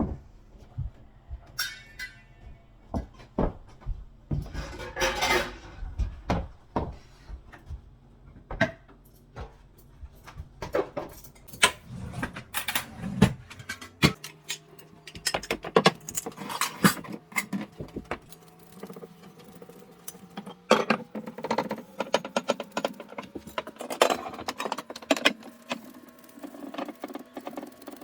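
Kitchen clatter: many sharp clinks and knocks of dishes and cupboard doors being handled, over a faint steady hum that stops about halfway through.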